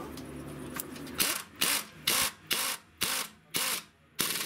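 Pneumatic wrench (air gun) snugging up the control-arm bolts. It hums steadily for about a second, then is triggered in seven short bursts, about two a second.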